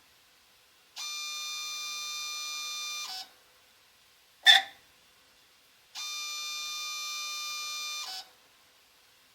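Multisampler valve of an Apollo DIC C5 analyser screeching as it switches inputs during a valve-cleaning cycle. Twice there is a steady, high-pitched screech about two seconds long, and between them comes one short, louder squeal. The screeching is an abnormal noise the owner is investigating.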